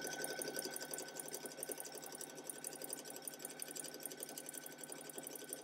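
Electric sewing machine stitching a seam through two strips of quilting cotton at a steady fast pace. The motor whines under a rapid, even needle clatter, and the machine stops right at the end.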